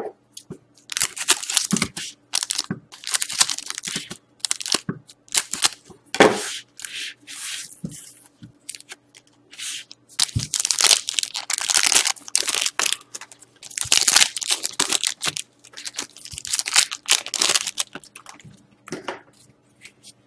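Foil wrappers of trading card packs being torn open and crinkled by hand, in many short rips and rustles with brief pauses between them.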